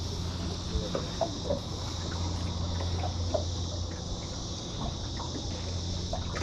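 Insects droning steadily at a high pitch over a steady low hum, with a few short faint chirps and ticks.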